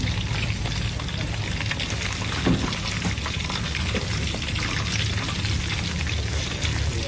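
Food frying in hot oil, a steady sizzle thick with small crackles, over a low steady hum.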